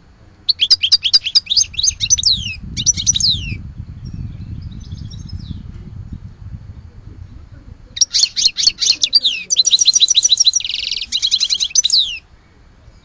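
A songbird sings two phrases of rapid, falling twittering notes, the first about half a second in and the second about eight seconds in. The second phrase holds a short buzzy trill near its end. A low rumble sits under the pause between the phrases.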